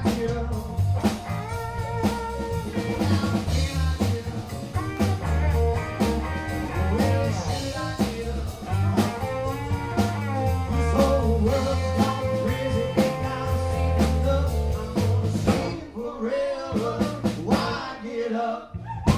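Live band playing with a male singer: electric guitar, bass guitar, drum kit and keyboard under sung vocals. Near the end the bass and drums drop out for a moment, then come back.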